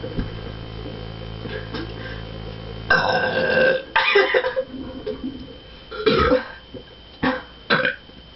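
A girl belching loudly several times, gas brought up by chugging a freshly opened can of Pepsi. There are two long belches about three and four seconds in, another about six seconds in, and two short ones near the end.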